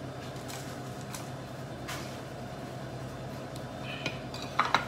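Steady mechanical background hum with a few faint light knocks of kitchen handling. Near the end a ceramic plate is set down on a granite countertop with a short scrape and clack.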